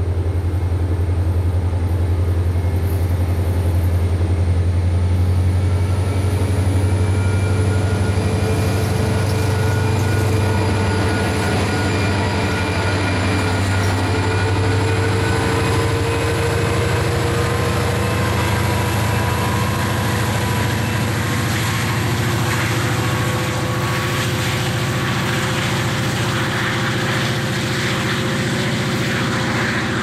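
Norfolk Southern EMD diesel locomotive's engine drone as the unit passes, its pitch slowly rising. Rail and wheel noise builds toward the end.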